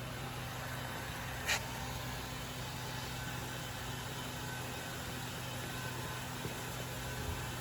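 Anzai LEO-300D5 colour sorting machine running with a steady hum and hiss. A single short burst of hiss comes about one and a half seconds in.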